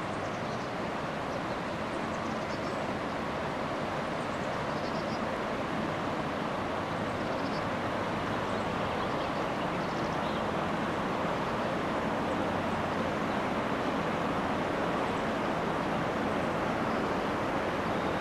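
Steady rushing noise of the Jizera river in flood, growing slowly louder.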